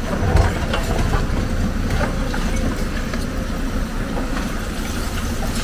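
Heavy diesel engine of an excavator running steadily, with a few short knocks through it, the strongest about half a second in.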